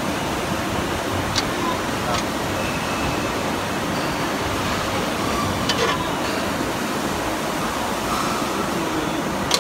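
Steady rushing machine noise of a running CNC press brake on the shop floor, with a few faint light clicks of the aluminium tread plate against the tooling.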